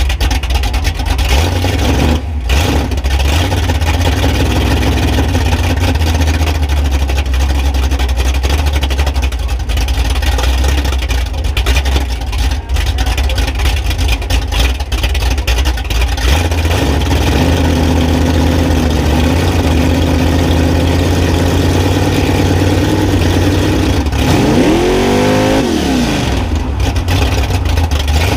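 Mega truck's engine running loud and low as the truck rolls along, picked up by a microphone under the chassis. About twenty-five seconds in, it revs up and drops back down.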